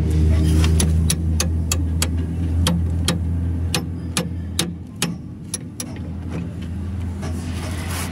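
The steady low hum of an engine running, with light metal clicks and knocks a few times a second as a truck torque arm rod's bushing end is pushed and worked into its mounting bracket; the clicks thin out about six seconds in.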